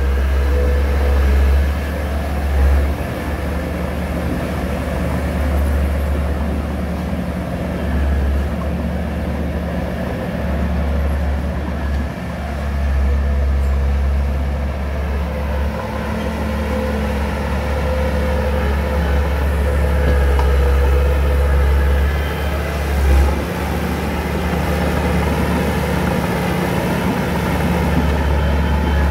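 Diesel engines of earthmoving machinery (bulldozer and dump trucks) running steadily, a continuous deep rumble with two brief swells.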